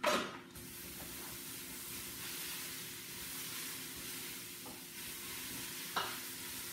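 Leeks, celery and garlic sizzling as they sauté in oil in a hot pot, stirred now and then, with some of the vegetables starting to stick to the bottom. A sudden loud sound at the start, and two light knocks of the spoon on the pot near the end.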